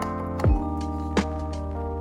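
Background music: held keyboard-like chords over deep kick-drum beats and light percussive clicks.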